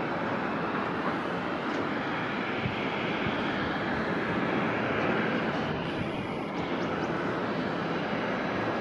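A jet airliner's engines running as it passes, heard as a steady, even rush of engine noise.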